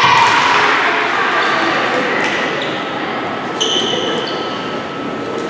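Crowd noise in a gymnasium at a volleyball match: spectators cheering and calling out, the noise dying down gradually, with a couple of short high squeaks, like sneaker squeaks, a little after halfway.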